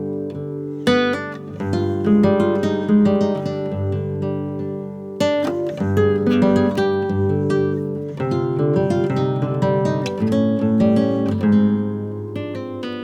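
Instrumental music on acoustic guitar: plucked notes ringing over one another, with strummed chords now and then.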